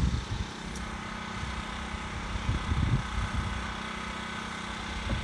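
A small engine running steadily with an even drone, with a few low thumps near the start, around the middle and near the end.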